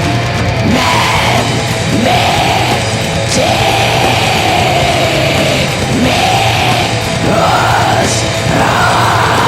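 Raw black metal playing back: dense, distorted, full-band music with harsh, drawn-out vocal lines rising and falling over it.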